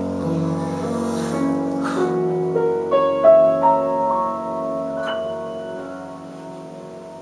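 Grand piano playing a slow introduction: held chords, a rising run of notes about three seconds in, then the notes ringing out and fading away.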